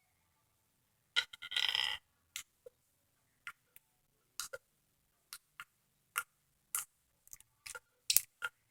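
Thick clear slime being squeezed and pressed by hand: scattered sharp pops and clicks of air bubbles, with one longer squelch about a second in.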